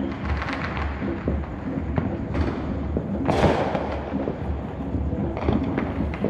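Fireworks going off: a rapid run of crackles and pops, with one louder boom about three seconds in.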